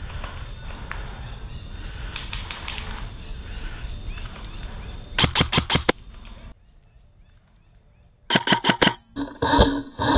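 Airsoft gun firing a rapid burst of about six shots about five seconds in, over steady outdoor background noise. After a sudden drop in the sound, a second quick burst of about six shots comes near the end.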